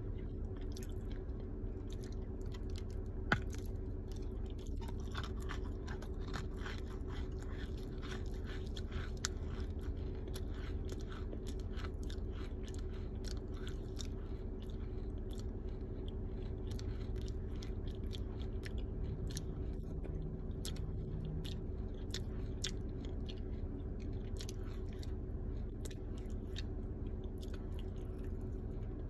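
A ball of baked crunchy clay being crunched: a steady run of crisp crackles and crunches, with one sharper click about three seconds in, over a constant low hum.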